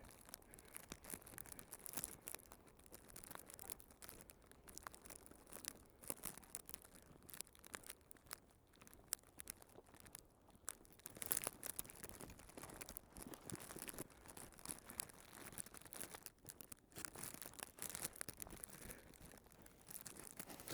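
Faint footsteps crunching through snow, an irregular run of crisp crackles and scuffs.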